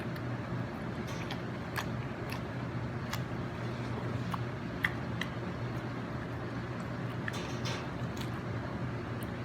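Close-miked eating: chewing with scattered small clicks and crunches, over a steady low background hum.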